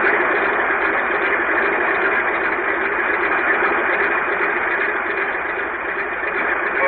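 Cartoon sound effect of a single-engine propeller plane's engine running: a steady, dense rushing drone that swells up just before and holds, dipping slightly near the end.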